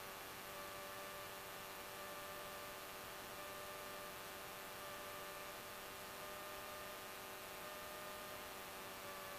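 Faint steady electrical hum and hiss on a light aircraft's intercom audio line, with a thin whine that drifts slightly in pitch.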